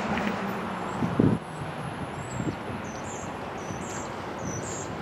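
Wind on the microphone over a faint distant rumble of an approaching train, with a gust thumping on the microphone about a second in. From about three seconds in, a small bird chirps short two-part notes about once a second.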